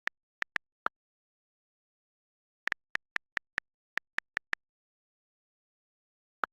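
iPhone on-screen keyboard key-click sounds from typing a text message. A few taps at the start, then a quick run of about ten, then one more near the end, with silence between.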